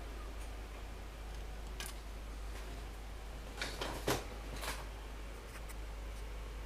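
Quiet room tone with a steady low hum, broken by a few faint short clicks around the middle, the clearest about four seconds in.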